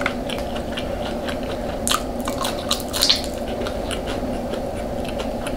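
Close-miked chewing of food: wet mouth clicks and smacks, a couple of them louder about two and three seconds in, over a steady low hum.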